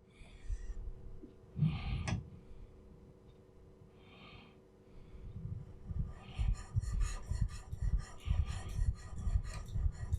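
Steel chisel being rubbed back and forth on an oiled carborundum sharpening stone, a rasping scrape. A few soft strokes come first, then from about halfway through a steady rhythm of about three strokes a second.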